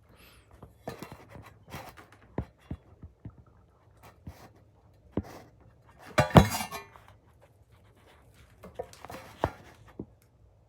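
Metal clinks and knocks as an oil filter wrench is fitted onto the engine's oil filter housing cap, with one louder clank about six seconds in.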